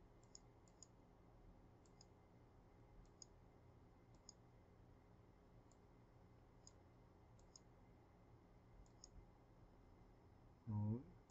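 Faint computer mouse clicks, some single and some in quick pairs, coming every second or so over a low steady room hum. A brief vocal sound comes near the end.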